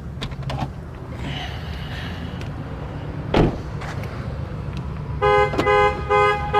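Low steady rumble with a single sharp thud about three and a half seconds in, then, about five seconds in, a loud pitched horn-like tone starts pulsing roughly twice a second.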